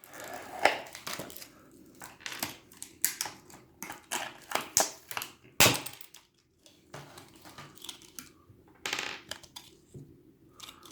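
Small plastic doll accessories being worked loose from their packaging by hand: irregular plastic clicks, taps and crinkles, with a sharper snap less than a second in and another about five and a half seconds in.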